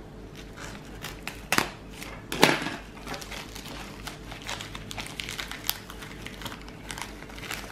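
Crinkling and crackling of a thin silver anti-static bag and plastic mailer handled by hand as small circuit boards are unwrapped. There are two sharper, louder crackles at about one and a half and two and a half seconds in.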